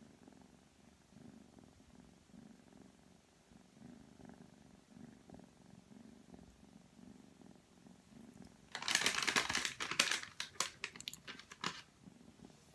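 Ragdoll kitten purring steadily, a soft even throb, while it is stroked under the chin. About nine seconds in, a loud rustling with scattered clicks covers it for about three seconds.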